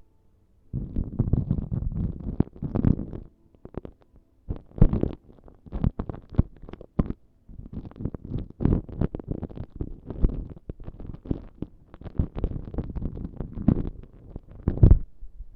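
Close-miked ASMR prop handling: irregular scratching, rubbing and tapping right on the microphone, heavy in the low end and broken by short pauses and sharp clicks.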